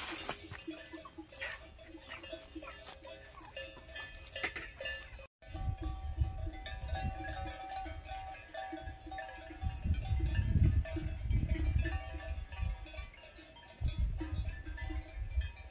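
Wind rumbling on the microphone from about five seconds in, under repeated ringing tones that run through the whole stretch.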